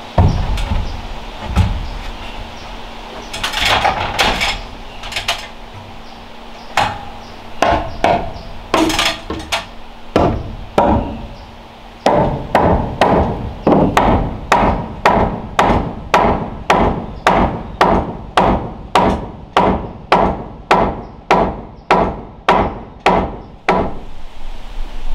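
Hammer striking timber overhead: scattered blows at first, then from about halfway a steady run of strikes, about one and a half a second.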